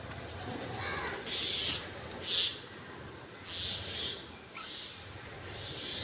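House sparrows feeding and flitting about: four short, hissy bursts of sound from the small birds, the loudest about two and a half seconds in.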